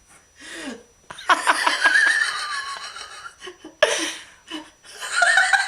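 A person laughing: a long bout of laughter starting just over a second in, and more laughter near the end.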